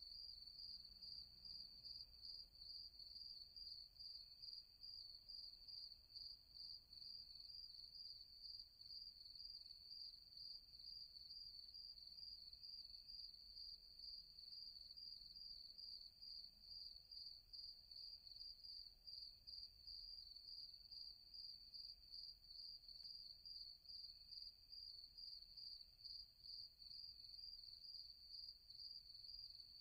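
Crickets chirping in a faint, steady, high-pitched pulsing trill that carries on without a break.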